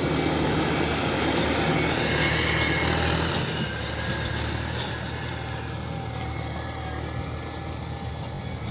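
Massey Ferguson 5710 tractor's diesel engine running steadily under load as it pulls a disc harrow through the soil. It is loudest as it passes close, then fades from about three and a half seconds in as it moves away.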